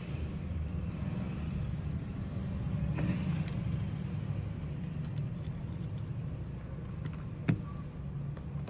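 Steady low rumble with a few small clicks and clinks over it; one sharper click comes about seven and a half seconds in.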